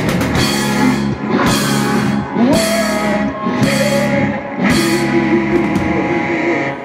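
Live heavy metal band, with distorted electric guitars, bass and drum kit, playing sustained chords with five big accented hits about a second apart, the ending of a song. The music stops just at the end.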